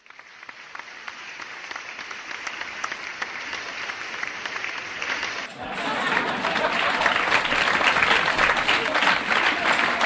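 A crowd applauding, starting out of silence and swelling; a little past halfway it dips for a moment and comes back louder and fuller.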